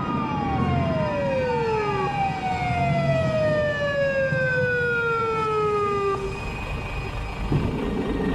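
Police car siren winding down: long falling wails that drop steadily in pitch and stop about six seconds in, followed by a low rumble.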